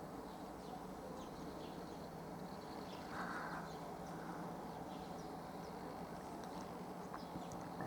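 Small birds chirping in short, scattered calls over a faint, steady low hum, with a brief hiss about three seconds in.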